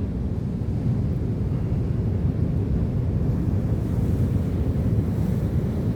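Wind buffeting the microphone over the steady wash of sea surf, a continuous low rumble.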